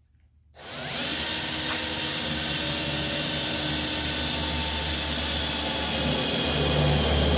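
Cordless drill running a uni-bit (step drill) through sheet-metal hood panel. It starts about half a second in, then runs steadily with a whine and grows slightly louder near the end.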